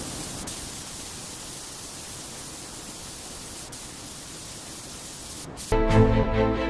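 Steady even hiss of noise, then music comes in suddenly near the end.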